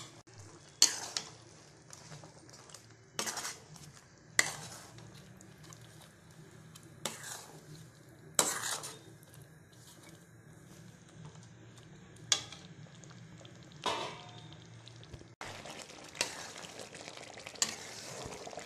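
Metal ladle stirring thick chicken curry in a metal kadai, mixing in ground coconut paste: short scrapes and knocks against the pan every second or two, over a low steady hum.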